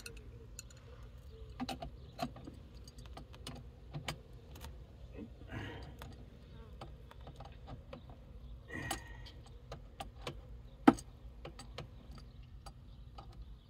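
Scattered clicks and taps of a wrench and metal coax fittings being worked on a cable line extender housing, with one sharp metallic knock about eleven seconds in.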